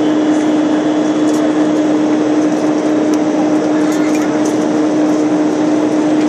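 Airliner cabin noise after takeoff: the engines drone steadily with a constant hum tone under a broad rush of air.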